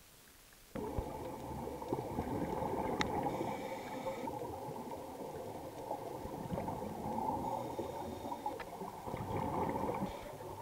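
Underwater bubbling and gurgling of scuba divers' exhaled air from their regulators, heard through the camera's underwater housing. It starts abruptly under a second in and rises and falls.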